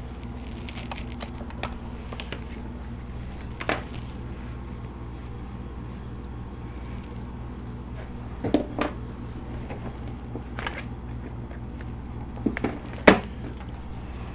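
A handful of short clicks and knocks as a laptop's power adapter and cables are handled and plugged in on a wooden workbench, the sharpest click near the end, over a steady low background hum.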